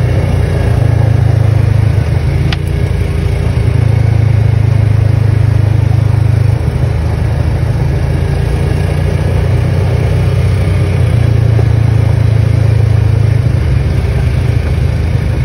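Polaris Ranger side-by-side's engine running steadily under way, heard from inside the cab as a loud, low drone, with one sharp click about two and a half seconds in.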